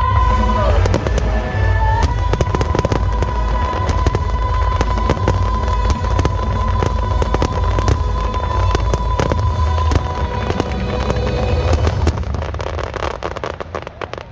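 Fireworks display going off in a dense barrage of rapid crackles and low booms over music with a long held note; the barrage thins out and dies away near the end.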